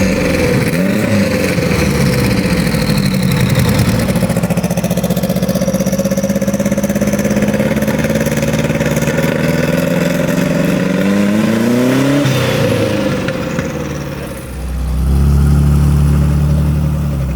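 Classic car engine running and being revved repeatedly, its pitch swinging up and down and climbing to its highest rev about twelve seconds in. About fifteen seconds in, steady bass-heavy music takes over.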